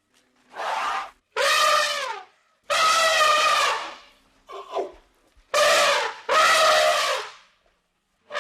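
A series of about six pitched animal calls, each about a second long or less, separated by short pauses.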